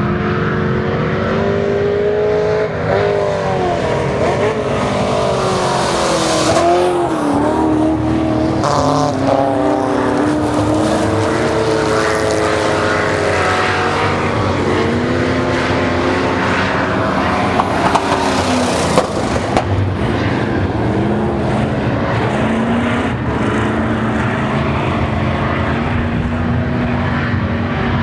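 V8 dirt-track race car engines revving up and easing off again and again as the cars lap the track, with more than one engine heard at once at times.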